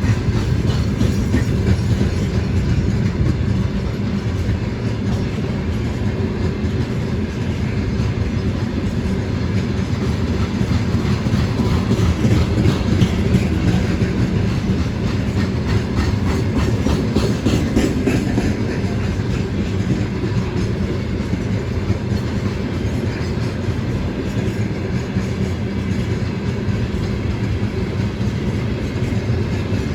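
Freight train rolling past, a steady heavy rumble with the wheels clacking over the rail joints.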